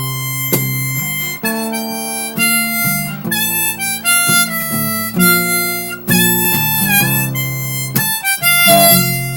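Harmonica playing an instrumental solo of held, changing notes over acoustic guitar, with a few wavering, bent notes about seven seconds in.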